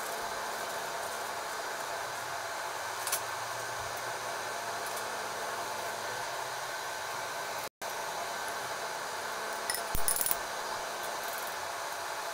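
Steady hiss of deep-frying on the stove, with a light metal clink about three seconds in and a short run of clinks around ten seconds. The sound drops out for an instant just before eight seconds.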